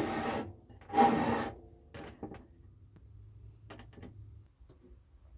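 The rusty cast-iron base of a 1930s Cooper Stewart Rain King sprinkler scraping and knocking on a wooden tabletop as it is handled and turned. There is a scrape at the start, a louder scrape about a second in, then a few light knocks.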